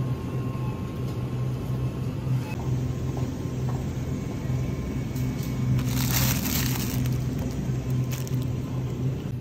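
Steady low hum of refrigerated supermarket produce cases, with plastic vegetable wrapping crinkling briefly about six seconds in as a packaged leek is handled.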